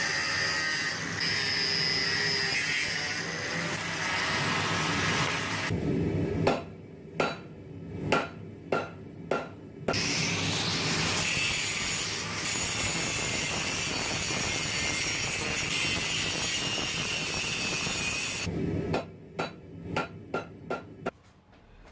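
Angle grinder running against a steel billet, broken twice by runs of hammer blows on metal, about two strikes a second, while the billet is drawn out.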